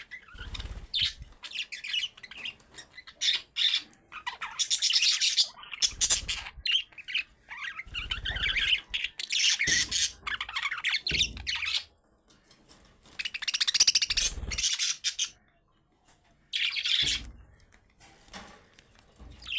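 Budgerigars chattering and warbling in rapid high bursts, with a couple of short pauses, over soft low thumps.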